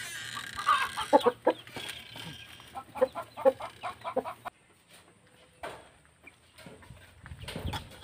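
Chickens clucking: many short calls in quick succession for the first half, then only a few scattered calls.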